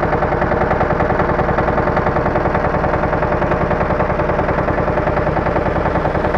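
Eicher ED 13 tractor's air-cooled single-cylinder diesel running steadily, with a rapid, even knocking beat.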